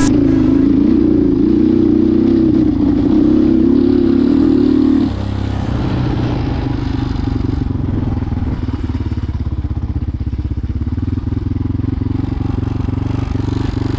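Motorcycle engine running. Its pitch wavers up and down for about five seconds, then it drops suddenly to a quieter, steadier note with a fast, even firing beat.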